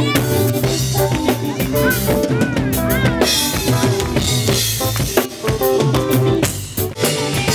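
Live band playing: a drum kit with kick and snare keeps a steady beat under electric bass, electric guitar and keyboards. The music drops briefly just before the end, then comes back in.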